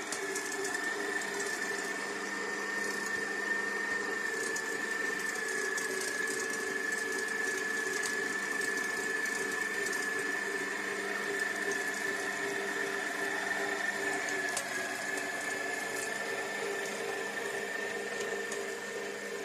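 Electric meat grinder running steadily while grinding chunks of raw lamb and beef pushed in with a plastic pusher: a steady motor hum with a high whine.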